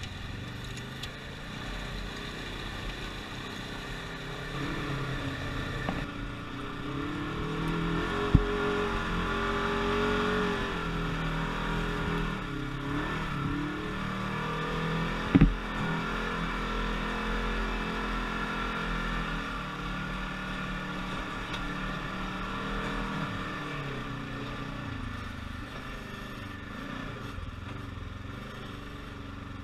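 Polaris RZR XP 1000 side-by-side's parallel-twin engine running under changing throttle, its pitch rising and falling, heard from the cab. Two sharp knocks stand out, about eight and fifteen seconds in.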